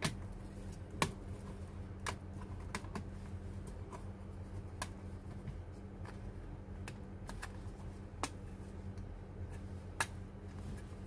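Small black plastic locks of an electronic typewriter's key panel clicking as they are released one after another: scattered sharp clicks, about a dozen, at uneven intervals, over a low steady hum.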